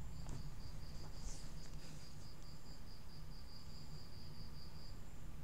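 A cricket chirping in a steady, rapid, high-pitched pulse of about five chirps a second, which stops shortly before the end. Under it runs a low hum, and there are a few faint handling clicks in the first two seconds.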